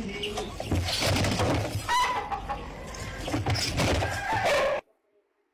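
Chicken clucking over loud rustling noise; the sound cuts off suddenly near the end.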